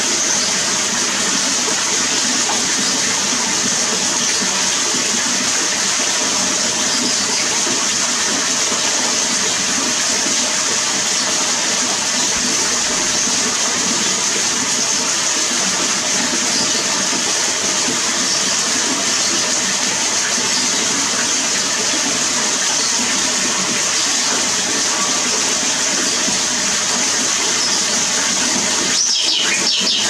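Water running steadily over rocks in a shallow stream, a continuous rushing burble. Near the end the water noise dips and a few bird chirps come in.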